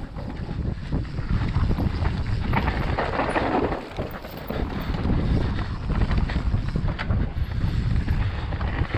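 Wind rushing over the microphone of a mountain bike on a fast downhill run, with the tyres rolling over dirt and leaf litter. Short rattles and knocks come from the bike jolting over bumps.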